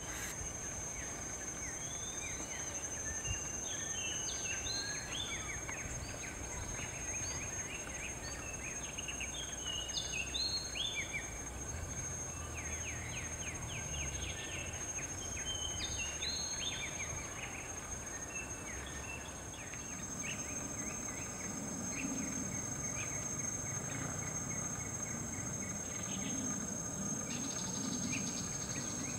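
Insects keeping up a steady high-pitched drone, with bird calls as short chirps coming thick and fast through the first half and thinning out later. A low hum comes in about two-thirds of the way through.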